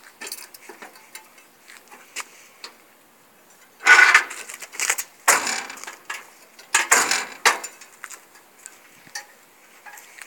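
The forward-tilting hood of a BMY M931A2 5-ton military truck being closed and secured. Scattered light clicks are broken by three loud half-second clatters, about four, five and seven seconds in.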